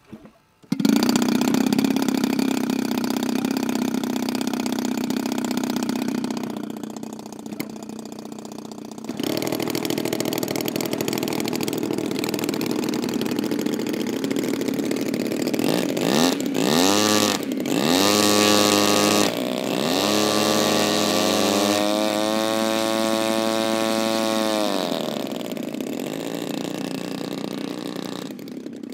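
A large-scale radio-controlled warbird model's engine is started by hand-flipping the propeller; it catches about a second in and runs at idle. About nine seconds in it gets louder, with a second model's engine likely joining. In the middle the engines are revved up and down several times, the pitch rising and falling, before settling back to idle.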